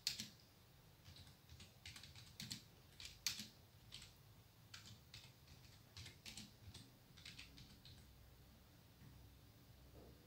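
Faint typing on a computer keyboard: irregular key clicks for about eight seconds, then stopping.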